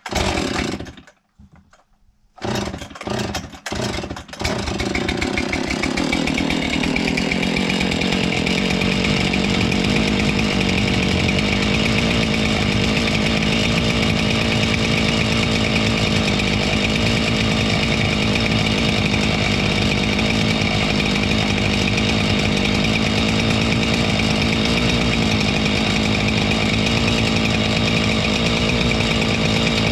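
Husqvarna 576 XTorq two-stroke chainsaw being started: a few short bursts, then it catches about four seconds in and runs steadily at a constant speed, with its rewelded muffler back on.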